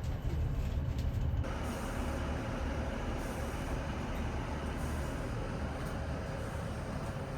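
Inside a ScotRail diesel train on the West Highland Line: a steady low rumble of the running train, with a hiss above it that grows louder and brighter about one and a half seconds in.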